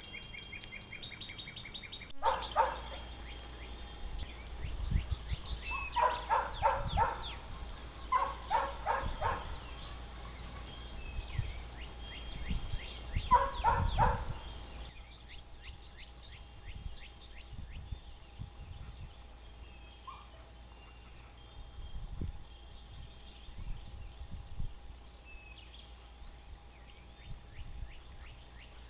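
A dog barking in four short runs of quick barks, the first about two seconds in and the last about fourteen seconds in, over birds chirping and calling.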